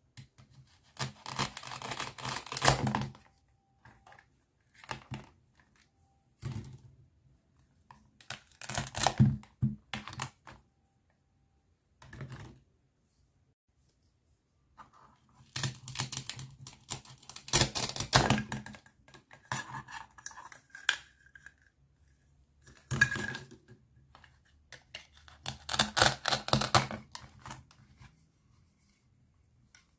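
Hook-and-loop (velcro) fastenings ripping apart as a toy knife separates the halves of plastic toy fruit and vegetables, in several short rasping bursts, with light clicks and clatter of plastic pieces and the plastic knife between them.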